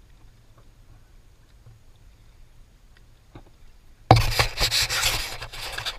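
Faint muffled rumble with a few small ticks, then about four seconds in a sudden loud, ragged rubbing and scraping directly on the camera's case, as of the camera being handled.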